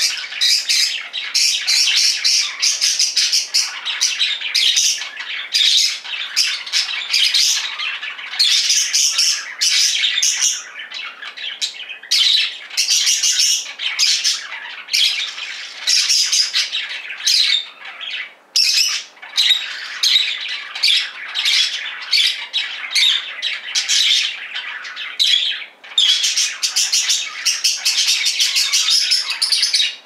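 Caged budgerigars chattering: a continuous stream of rapid, high chirps and warbles, dipping briefly twice.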